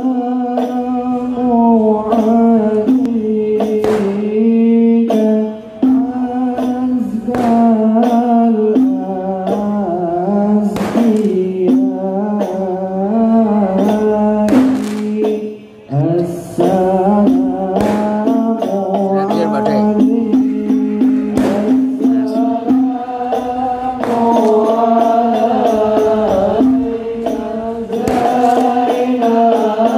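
Men singing sholawat in chant-like unison through a microphone and PA, the melody held around one steady low note, with sharp percussive hits every second or two.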